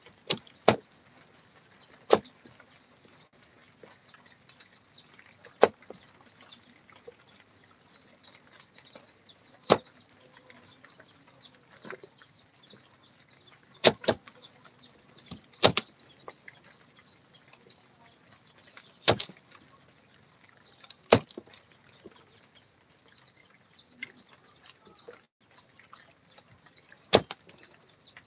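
Sharp single knocks, about a dozen, spaced irregularly from under a second to several seconds apart, over a faint steady background.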